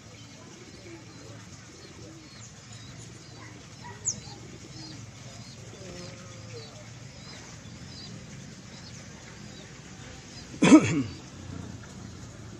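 Small birds chirping faintly throughout, with one sharp falling note about four seconds in. Near the end comes a brief, much louder pitched sound lasting about half a second.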